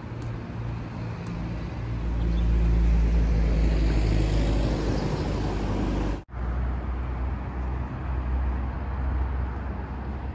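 Road traffic with a box truck driving past close by, a low rumble that is loudest for about four seconds from two seconds in. The sound cuts out for an instant just after six seconds, then the traffic goes on.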